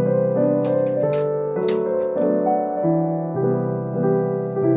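Background piano music: slow, held chords that change about once a second.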